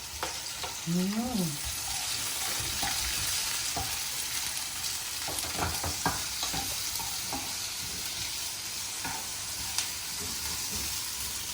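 Food frying and sizzling in a hot pan with a steady hiss as it is stirred, with a few short knocks and scrapes of the spatula against the pan.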